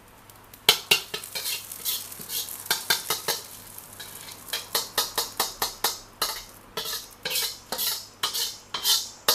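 A steel ladle scraping and knocking against a metal wok in quick, repeated strokes as fried rice is scooped out and dished onto a plate; the strokes start about a second in.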